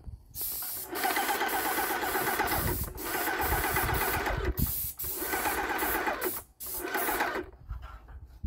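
Graco Magnum electric airless paint sprayer running: its piston pump chatters fast and evenly under a loud hiss while primer is sprayed. It runs in four stretches with short breaks between them and stops near the end.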